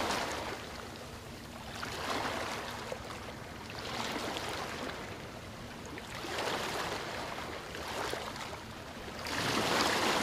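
Sea water lapping and sloshing in gentle swells that rise and fall about every two seconds.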